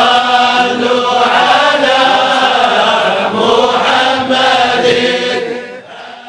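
Group of men chanting a Sufi devotional song (samaà) together, long held notes gently rising and falling in pitch, fading out near the end.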